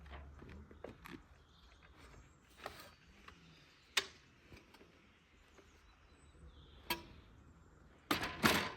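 A few faint, scattered clicks and knocks over a quiet background, with a louder burst of clattering near the end.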